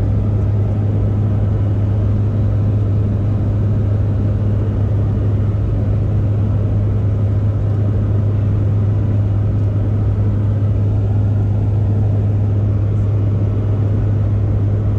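Steady drone of a skydiving jump plane's engines and propellers inside the cabin in flight, a constant low hum with no change in pitch or level.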